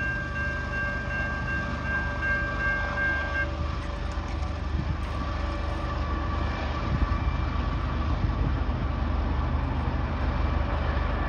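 Distant diesel freight locomotive horn sounding a long chord that stops about three and a half seconds in, then a fainter second chord from about six seconds on, over the steady low rumble of the train moving away.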